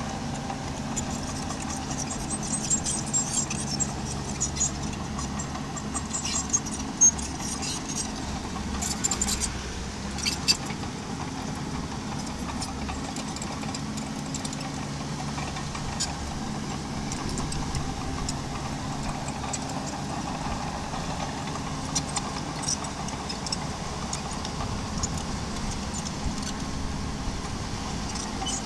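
Small bulldozer's engine running steadily, with sharp metallic clinks and rattles from its tracks or moving stone, most of them between about two and eleven seconds in.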